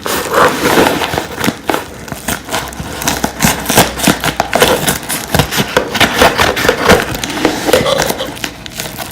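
Scissors cutting into a taped cardboard shipping box, with many quick crackles and clicks of tape and packaging being worked open.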